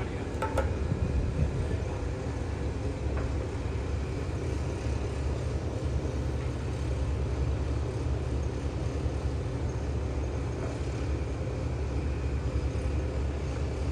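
Steady low rumble with an even hiss above it, unchanging throughout.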